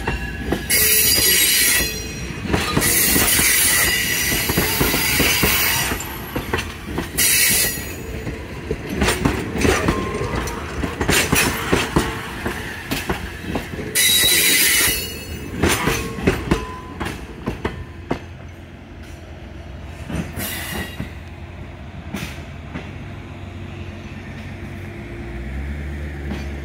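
Passenger coaches rolling slowly past close by, the wheels clicking over rail joints, with several loud bursts of high-pitched wheel squeal in the first half. The sound grows fainter as the last car moves away, and a low hum comes in near the end.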